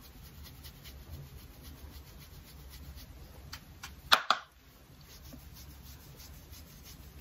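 Bristles of a large round makeup brush rubbing powder bronzer along the cheekbone in faint, quick strokes. About four seconds in there is one brief, much louder scrape or tap as the brush is lowered, likely to pick up more product.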